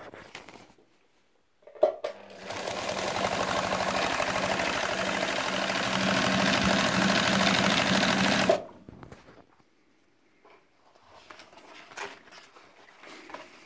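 Alfa Z333 zigzag sewing machine stitching through four-ply car-seat vinyl: a sharp click as it starts, then about six seconds of fast, steady running. It stops abruptly and is followed by a few faint knocks.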